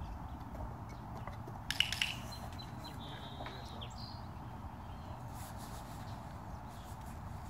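Quiet outdoor ambience with a steady low rumble and faint short bird chirps. About two seconds in comes a brief cluster of sharp clicks, the loudest sound here.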